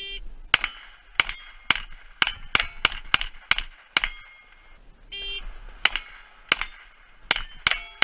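Pistol-caliber carbine firing a fast string of about a dozen shots, roughly half a second apart, at steel targets, each hit ringing the steel plate with a metallic clang. A short steady tone sounds twice, once at the start and once about five seconds in.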